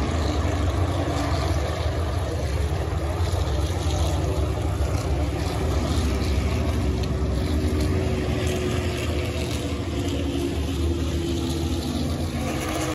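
A pack of stock cars racing at full speed around a banked oval: a loud, steady drone of many engines.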